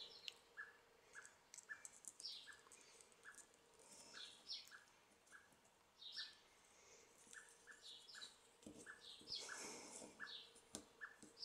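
Faint chirping of small songbirds: short repeated notes, about two a second, with higher calls over them. A couple of soft paper rustles come about nine to ten seconds in.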